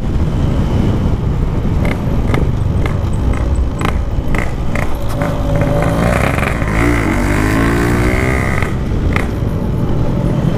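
Two-stroke motorcycle engine running under way through a Packing Power aftermarket exhaust, with road and wind noise and a few sharp knocks; the engine note rises and falls once near the middle.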